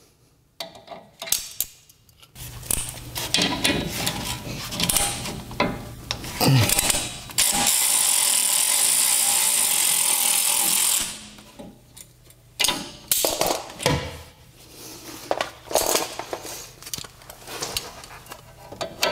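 Ratchet with a 13 mm socket clicking and metal tools clinking on the rear brake caliper bolts. About seven seconds in, a loud steady rushing noise runs for three to four seconds and cuts off suddenly, then the clicking resumes.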